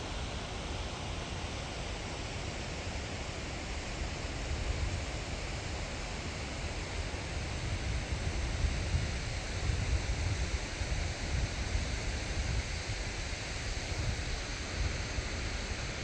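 Wind buffeting the microphone in uneven gusts, a low rumble that swells and eases, over a steady rushing hiss of open-air mountain ambience.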